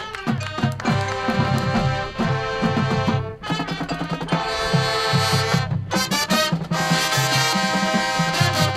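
Marching band playing: the brass section sounds sustained chords over a steady beat of low drums. The brass thins out briefly about three seconds in, then comes back in fuller, louder chords.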